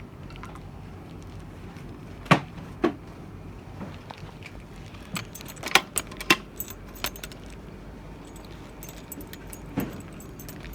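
A bunch of keys jangling, with a string of sharp metallic clicks and knocks from the door's lock hardware being handled: two loud knocks about two seconds in, a cluster of clicks midway and one more near the end.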